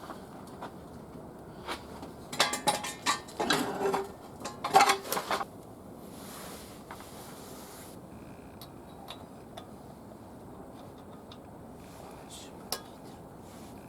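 Metal clattering: a quick run of sharp clinks, knocks and rattles, some briefly ringing, between about two and five and a half seconds in, then only a few faint ticks.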